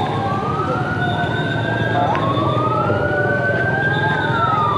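Sirens of an ambulance convoy wailing, several slow rising and falling tones overlapping one another, over a steady rumble of street traffic.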